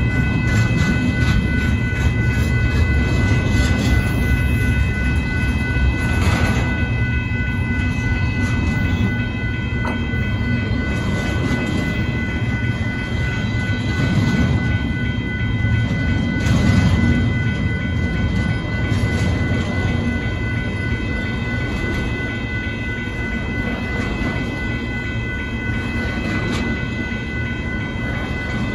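Union Pacific double-stack intermodal freight train rolling steadily past: a continuous low rumble of wheels on rail with occasional clanks. Steady high-pitched tones sound over it throughout.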